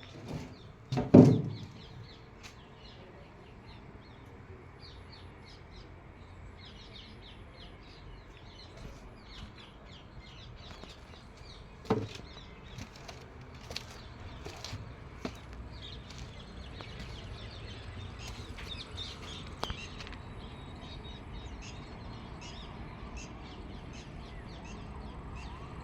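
Birds chirping in short high notes scattered throughout, over a low steady background hum. A loud thud about a second in and a sharper knock about twelve seconds in stand out as the loudest sounds.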